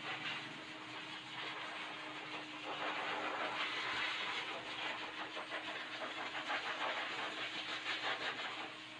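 Pet blow dryer running steadily: a motor hum under a rush of air that swells and eases as it is moved.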